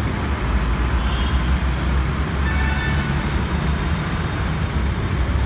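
Steady road-traffic noise, a low rumble with hiss, with a faint brief tone near the middle, like a distant horn.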